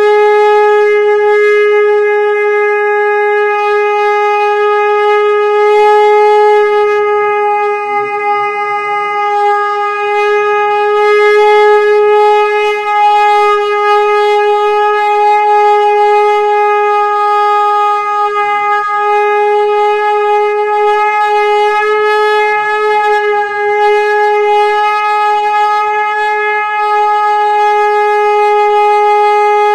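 Conch shell (shankh) blown in one long, steady, loud note held without a break.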